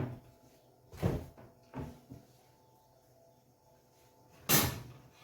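A few short knocks during kitchen work, then a louder thump about four and a half seconds in, like a cupboard door or an object set down on a counter.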